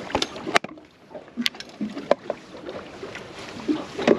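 Hinged plastic fish-measuring board being folded and handled, giving a few sharp clicks, over a background wash of wind and water. A louder thump comes at the very end.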